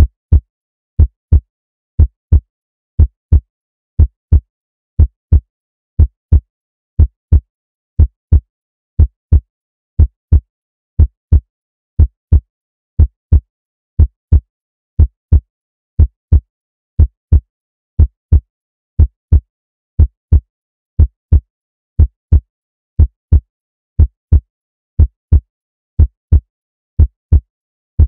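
Heartbeat sound effect: steady lub-dub double thumps, about one beat a second.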